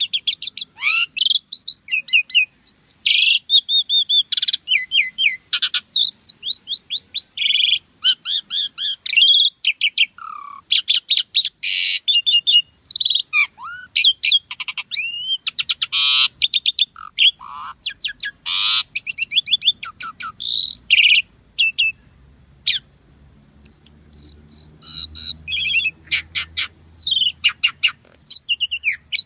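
Asian pied starling singing a long, rapid, varied song of whistles, chirps, trills and rattling notes, packed with borrowed phrases.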